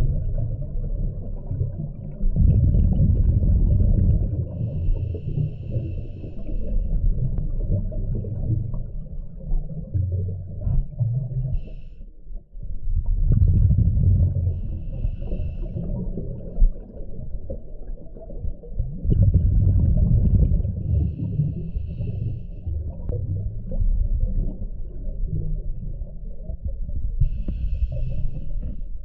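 Scuba diver breathing through a regulator underwater: a rumble of exhaled bubbles alternates with the hiss of each inhale, about every six seconds.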